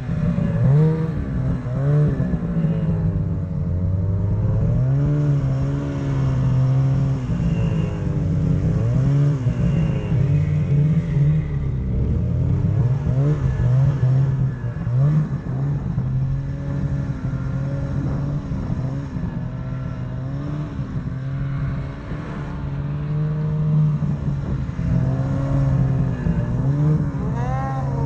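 Snowmobile engine running under the rider, revving up and down over and over, its pitch rising and falling every second or two as the throttle is worked through deep powder.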